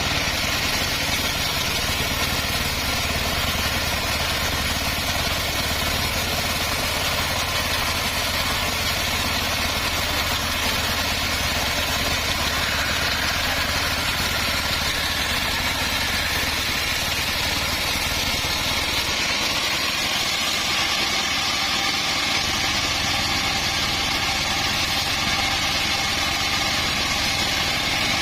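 Homemade portable bandsaw sawmill running steadily as it saws through a teak log, a continuous motor hum under the noise of the blade. About two-thirds of the way through, the low hum drops back and a steady higher whine comes in.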